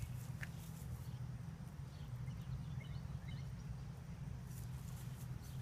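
Quiet outdoor background: a steady low hum, with a few faint high chirps about two to three and a half seconds in.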